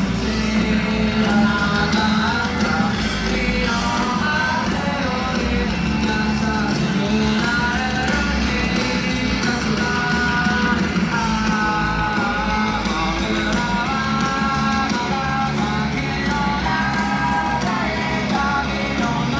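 Music: a pop-rock song with a singing voice, guitar and a full band.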